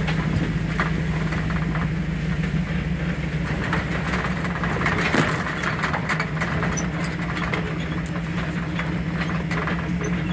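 Vehicle engine running steadily with a low hum as it drives along a dirt trail, with scattered light clicks and knocks.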